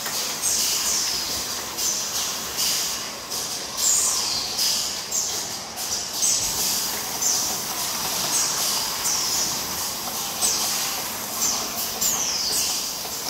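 Automatic jar filling and capping line running: a steady mechanical hiss with repeated short, high-pitched squeaks that fall in pitch, about one every second.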